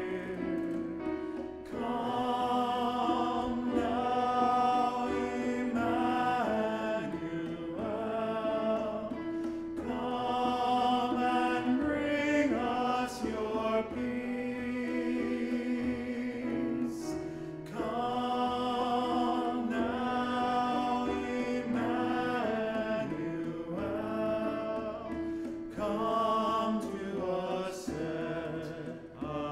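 Choir and congregation singing an Advent entrance hymn with instrumental accompaniment, in sung phrases of a few seconds each over held low notes, with brief breaks between verses.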